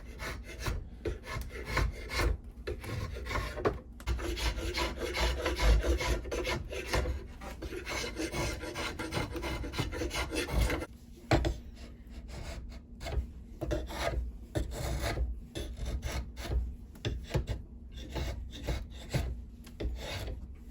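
Repeated rasping strokes of a hand tool taking wood off a cant hook's wooden handle so the fitting will seat flush. About eleven seconds in, the strokes become sparser and duller.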